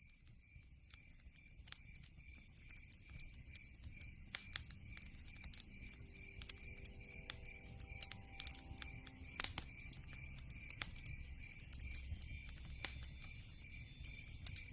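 Wood fire crackling in a fireplace: irregular sharp pops and snaps over a low rumble of flames, fading in at the start.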